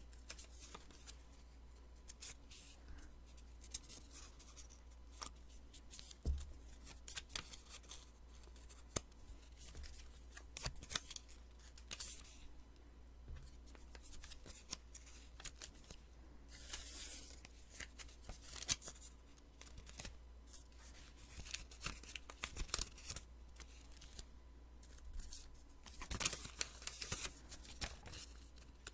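Sticky notes being peeled and handled close to the microphone: irregular crackly sticky clicks and paper rustles, with a few longer peeling sounds.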